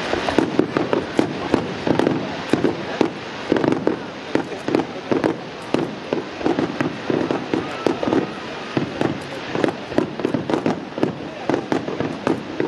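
Aerial fireworks shells bursting in a rapid barrage, bangs coming several times a second without a pause.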